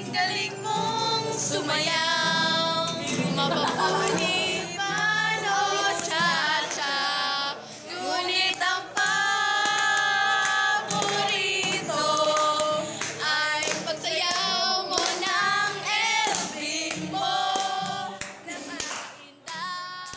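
Two girls singing loudly together, with some hand clapping mixed in; the singing thins out near the end.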